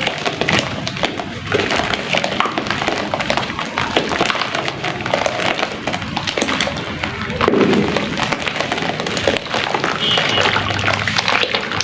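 Sand-and-cement chunks crumbling, a dense run of small crackles and crunches.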